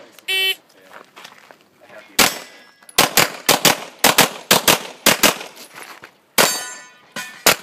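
A shot timer beeps once, then about two seconds later a semi-automatic pistol fires a rapid string of about a dozen shots, mostly in quick pairs.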